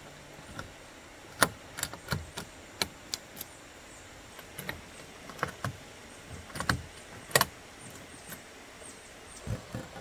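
Stainless steel latches and buckles on an iKamper Skycamp 3.0 Mini rooftop tent's hard shell being worked by hand: a string of sharp, irregular metal clicks and clacks, two of them louder than the rest.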